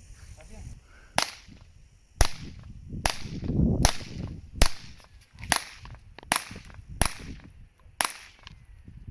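CZ P-07 pistol firing .22 LR rounds: nine sharp cracks at a steady pace of about one shot a second.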